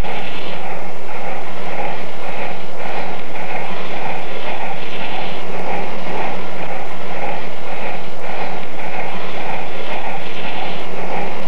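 Union Pacific steam locomotive working, its exhaust chuffing in a steady rhythm about twice a second over a continuous low hum.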